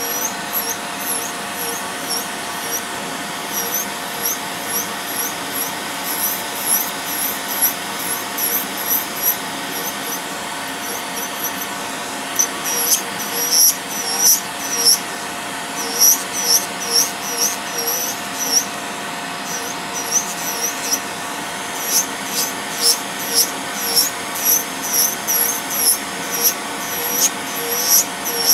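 Electric podiatry nail drill running with a steady whine while its rotary burr grinds down a toenail thickened by fungal infection. Short high squeaks come about twice a second as the burr strokes across the nail, growing denser and louder about halfway through.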